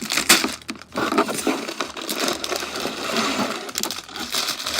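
Plastic bags of LEGO pieces crinkling as they are handled, with the loose plastic bricks inside clicking and rattling.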